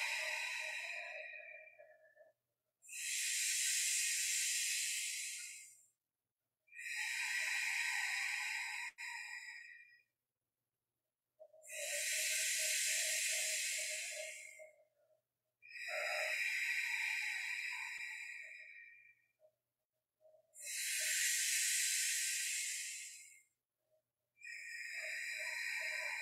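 Deep, forceful breaths drawn in and blown out through the mouth in a yoga breathing exercise. The breaths come one after another, about seven in all, each lasting about three seconds with a short pause between them.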